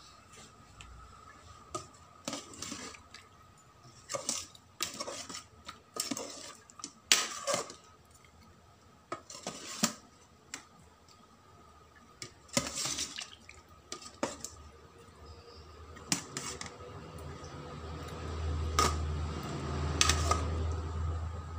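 A metal spoon stirring chicken pieces in coconut-milk curry sauce inside an aluminium rice-cooker pot: irregular scrapes and knocks against the pot, with wet sloshing of the sauce. A low hum rises over the last few seconds.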